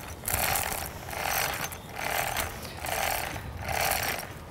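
Hand-operated chain hoist on a tripod being worked in steady pulls, its chain rattling and clicking through the block about once a second as a heavy gravestone hangs from it.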